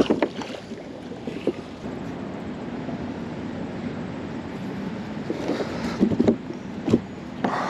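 A magnet fishing magnet splashing into a river at the very start, then steady wind noise on the microphone with water sounds around the kayak, and a few short knocks from handling the rope a little over five seconds in.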